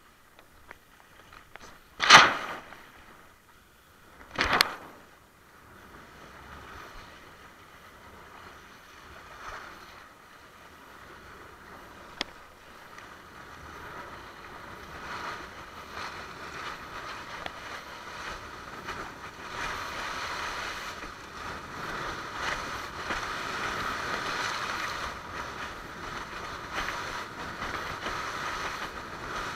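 Water splashing and rushing against a windsurf board's hull: two loud slaps, about two seconds in and again two seconds later, then a steady rushing hiss that grows louder through the second half.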